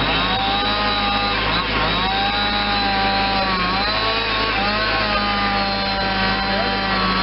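Chainsaw running and cutting into the trunk of a dead tree, its pitch dipping and recovering a couple of times as it bites into the wood. A steady low engine drone runs underneath.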